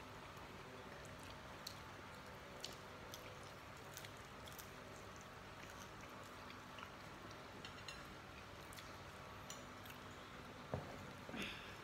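Quiet eating by hand: faint chewing and scattered small ticks of food, fingers and plates over steady room tone, with a sharper knock near the end.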